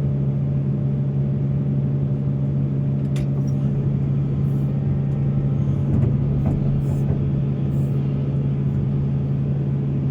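Heavy diesel engine of an excavator running at a steady speed, with a few faint clicks and knocks over it.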